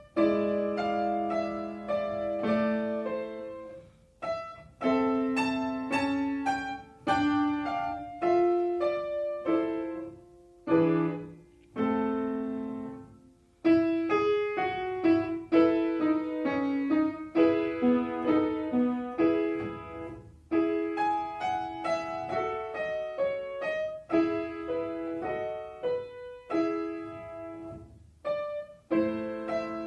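Solo piano playing a classical piece: sustained chords and melody notes, a brief pause about thirteen seconds in, then quicker runs of notes.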